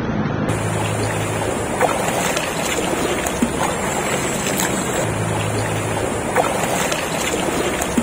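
Shallow river flowing over stones, a steady rush of water, with a few light splashes from people bathing in it.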